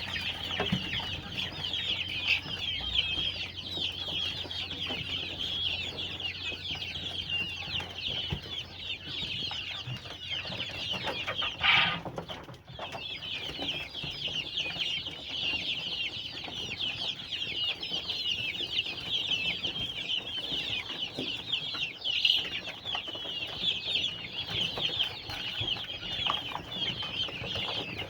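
Flock of caged Japanese quails chirping continuously, many high-pitched calls overlapping, with one brief louder sound near the middle.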